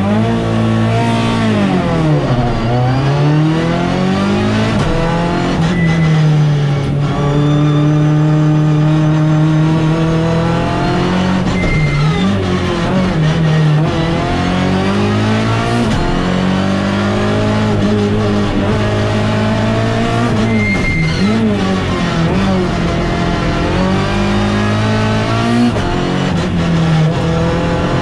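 Citroën C2 competition car's engine heard from inside the cabin under hard driving. It revs up, holds high, then drops sharply in pitch again and again as the driver shifts gears and lifts off for corners.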